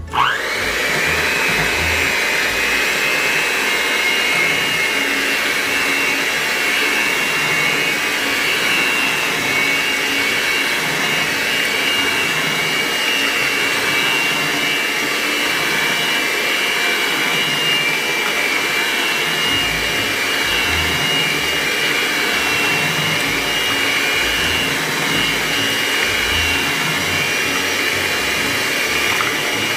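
Black+Decker electric hand mixer switched on, its motor whining quickly up to speed and then running steadily as the beaters churn cassava batter in a stainless steel pot.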